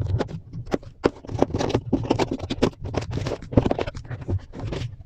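Cardboard keyboard box being opened and handled by hand: a busy run of irregular scrapes, rubs and light knocks of cardboard and packaging.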